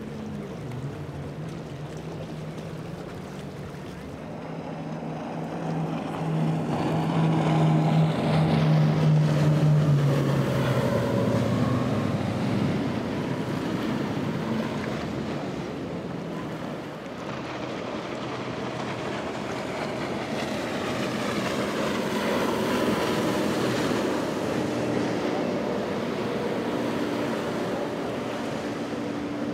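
Powerboats running fast past the microphone one after another, engines droning over hull spray. An Intrepid's quad Yamaha 350 outboards come up loudest about a third of the way in, their pitch dropping as the boat goes by. A 1999 Skater's engines run steadily near the end.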